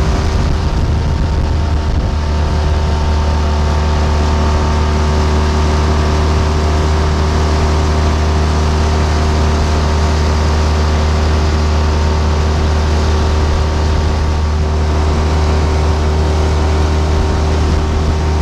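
Outboard motor driving an inflatable dinghy, running steadily at an even speed.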